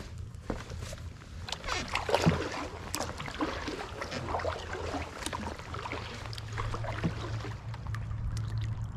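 Paddle strokes in floodwater: irregular splashes, drips and gurgles as a kayak moves along, over a low steady hum.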